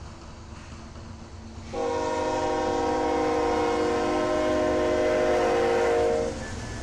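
Diesel locomotive air horn sounding one long blast, starting about two seconds in and cutting off near the end, over the low rumble of the passing freight train's diesel engines.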